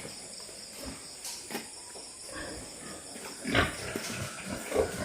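Pigs grunting in their pens, with a louder call about three and a half seconds in.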